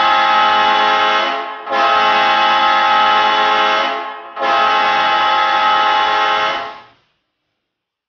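Hockey goal horn sounding three long blasts of about two and a half seconds each, steady in pitch with short gaps between them; the first is already sounding at the start and the last cuts off about seven seconds in.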